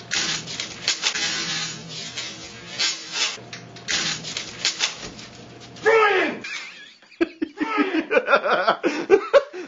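Clear plastic tape crinkling and tearing as a man pushes through strands stretched across a hallway, then people laughing hard from about six seconds in.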